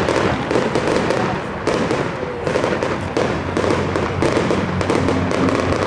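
Fireworks display: aerial shells bursting in a dense, irregular run of bangs and crackling.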